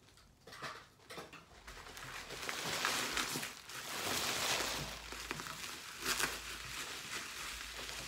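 Plastic bubble wrap crinkling and rustling as it is handled and pulled out of a box, with foam packing peanuts shuffling. It starts nearly quiet and builds to its loudest a few seconds in.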